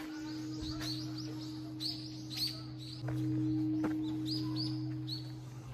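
Small songbirds chirping over and over in short, falling calls, over a steady low two-tone drone that swells about halfway through.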